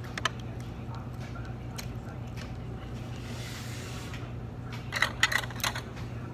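Steady low hum of a restaurant dining room, with a short hiss about three seconds in and a brief clatter of tableware, several sharp clicks and knocks, about five seconds in.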